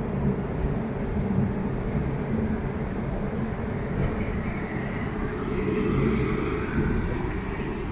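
Steady low rumble of outdoor background noise, with no single distinct event standing out.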